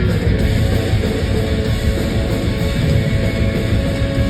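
Loud guitar-driven rock music.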